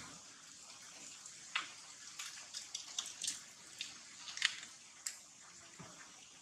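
Faint outdoor ambience: a steady high hiss with about a dozen short, sharp high ticks scattered through it, the loudest about four and a half seconds in.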